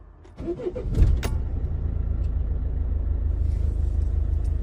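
Low steady rumble of a car heard from inside the cabin, starting about a second in after a few clicks.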